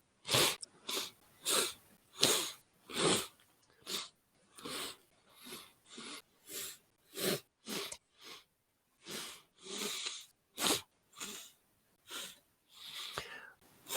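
Rapid, repeated sniffling: short noisy sniffs through the nose, about two a second, with a brief lull around the middle.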